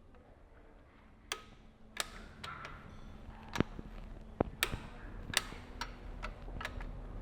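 Click-type torque wrench clicking on the flywheel bolts, set to 40 N·m: about ten sharp single clicks at uneven intervals, each one a bolt reaching torque on bolts that were already snugged.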